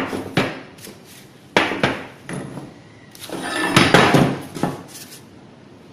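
Steel bars and hammers set down and shifted on a steel workbench, clanking and clattering with a metallic ring: a sharp clank at the start, another about a second and a half in, then a longer run of clatter near the end.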